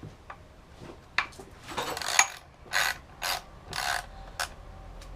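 Socket ratchet wrench worked in short strokes: about five rasping clicking sweeps, roughly half a second apart.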